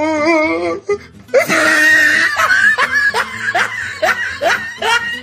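Loud human laughter: a wavering drawn-out note, then a long run of short 'ha' bursts, each falling in pitch, with music underneath.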